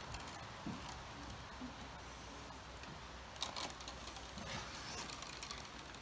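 Soaked buff willow rods rubbing and clicking against each other as a rod is woven in and out around upright stakes: soft rustling with light clicks, and a sharper scrape about three and a half seconds in.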